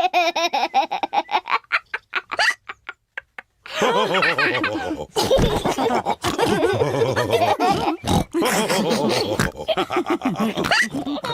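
Cartoon pig characters laughing and snorting, with a short lull about two seconds in before the voices pick up again.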